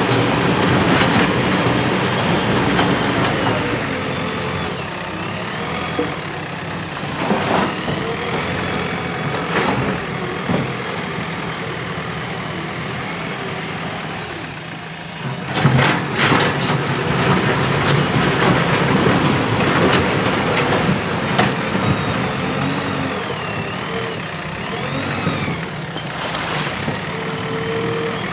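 Diesel engine of a JCB 3DX Plus backhoe loader running steadily under work, with a few sharp knocks from the machine, the loudest about 16 seconds in.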